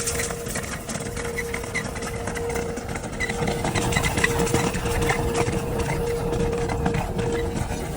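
Motorized dryer vent cleaning equipment running steadily: a constant hum with a crackling rattle of short clicks over it, getting a little louder after about three seconds.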